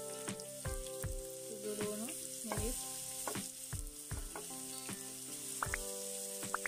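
Chopped onions, with dried red chillies and garlic, sizzling in oil in a non-stick frying pan and being stirred with a spatula. Background music with a steady beat plays over it.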